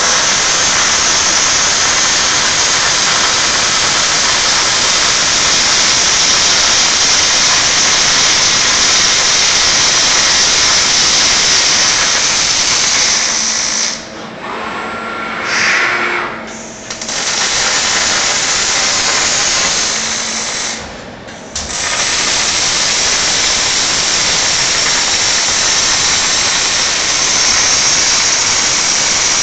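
Panasonic robot MIG welding: the arc gives a steady, loud hiss and crackle. The arc stops twice, for about three seconds around the middle with a faint hum in the gap, and for about a second a few seconds later, each time restarting for the next weld.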